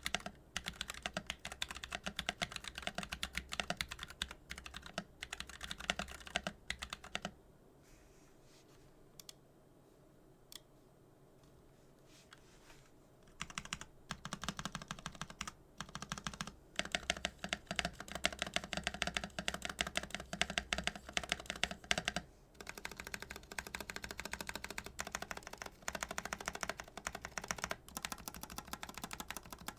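Womier YC66 mechanical keyboard with an acrylic case and plate and stock Glorious Panda tactile switches, typed on quickly in a steady stream of key clicks. A pause of about six seconds a quarter of the way in holds just two single keystrokes before the typing resumes.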